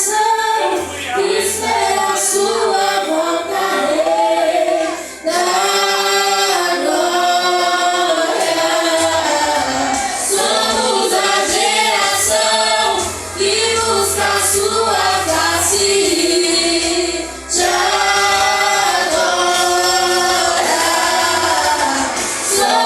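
A worship vocal group singing a gospel song in harmony, phrase by phrase with short breaths between, over a low bass line.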